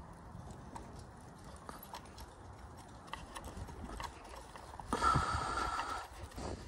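Light clicks and taps of a hard plastic motorcycle hand guard being handled and pressed against the mirror stem while it is fitted. About five seconds in there is a louder rubbing sound lasting about a second.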